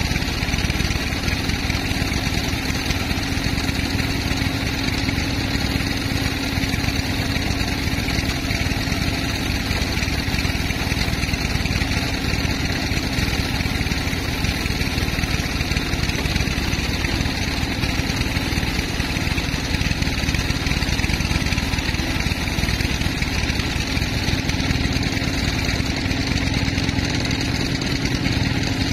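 Sawmill engine running steadily, an even drone that holds the same pitch and level throughout.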